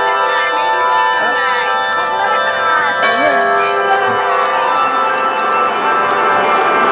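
Church bells ringing continuously, their strokes overlapping in a steady, loud wash of ringing tones.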